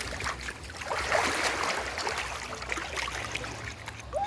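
Water splashing and trickling, with scattered small clicks.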